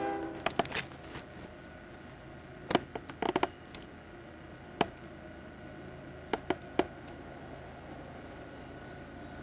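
The tail of a locomotive horn cuts off at the very start. Then scattered sharp clicks and taps from handling the 8mm camcorder sound over a steady low hum: a few near the start, a cluster about three seconds in, one near five seconds and three more around six and a half seconds.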